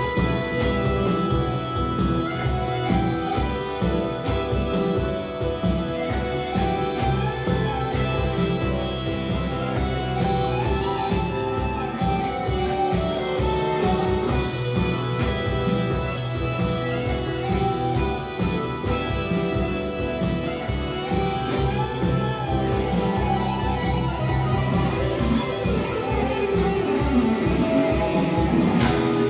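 Tom Anderson Drop Top electric guitar playing a lead line through a distortion pedal, over a backing track with a steady beat.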